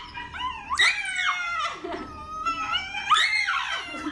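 A Shiba Inu screaming in protest while its front paw is held: a run of high, wavering cries that rise and fall in pitch, loudest about a second in and again near the end.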